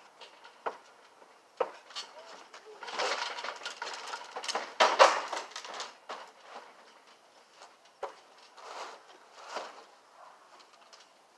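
Knocks and clatter of a plastic children's table being jumped on, knocked over and handled on a trampoline mat, with the loudest crash about five seconds in and smaller knocks and rustles later as it is moved.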